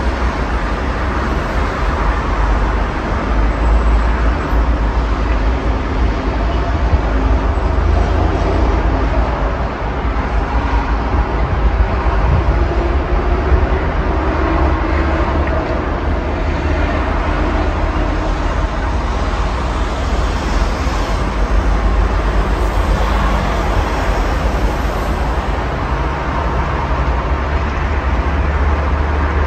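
Steady road traffic on a busy multi-lane highway: a continuous wash of cars and vans passing, with a deep rumble underneath.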